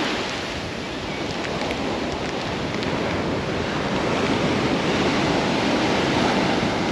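North Sea surf breaking steadily on a steep sand beach, mixed with wind buffeting the microphone.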